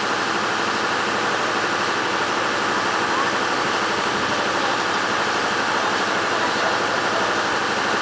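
Steady, unbroken noise of a passenger train heard from an open coach doorway, with passengers' voices mixed in.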